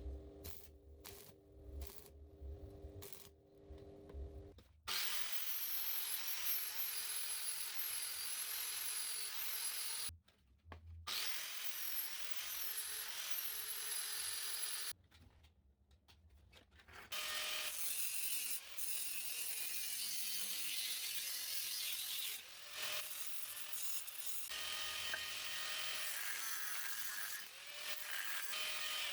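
Power tool cutting or grinding a piece of steel in three long runs with a wavering high whine, broken by short stops. Before the first run there are a few clicks and handling sounds.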